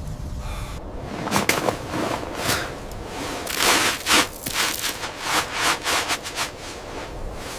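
Snow crunching and scraping in a quick, irregular series of short strokes, as snow is worked by hand or tool.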